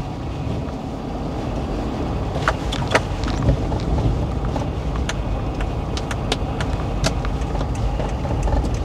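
Car running slowly while being pulled in to park: a steady low engine and road rumble, with scattered light ticks at irregular intervals.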